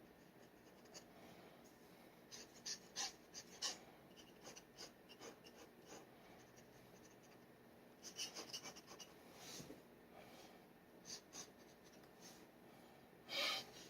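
Faint scratching of a steel G-nib dip pen on paper, in short strokes that come in a few separate bursts, the loudest near the end.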